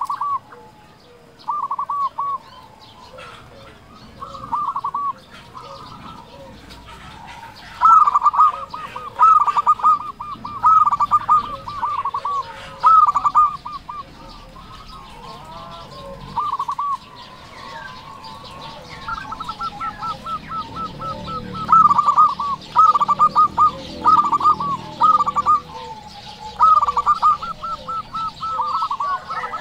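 Local-strain zebra dove (perkutut) cooing in full song: repeated phrases of rapid staccato notes, each phrase about a second long, some running longer. Fainter chirps from other small birds sound behind it.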